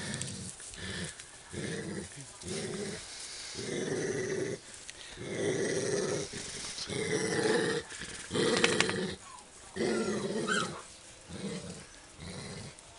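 Labrador retrievers growling, a run of short rough growls one after another, while the puppies crowd an adult dog.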